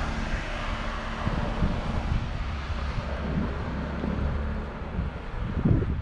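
A motor vehicle passing on the street, a steady hum that fades away over the first few seconds. Wind buffets the microphone near the end.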